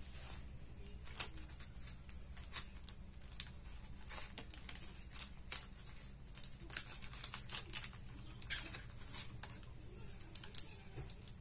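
Paper and plastic snack wrappers crinkling and rustling as hands arrange a snack bouquet, in frequent short, irregular crackles, over a faint low hum.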